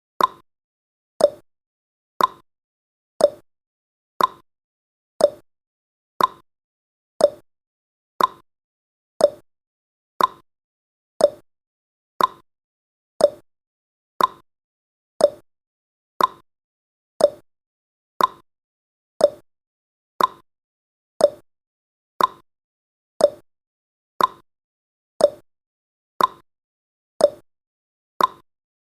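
Countdown timer's tick sound effect: a short, sharp click once every second, evenly spaced and dying away quickly.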